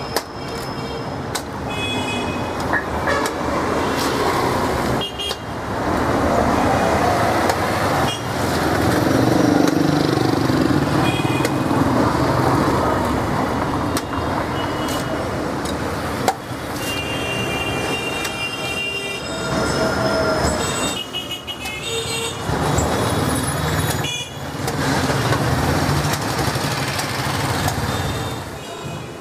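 Street traffic with vehicle horns tooting again and again. A few sharp knocks come through, the clearest about sixteen seconds in, from a machete chopping into green coconuts.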